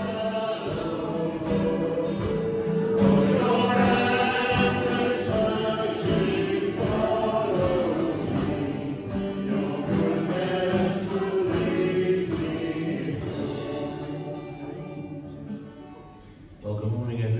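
A group of voices singing church music with a steady accompaniment, fading out near the end.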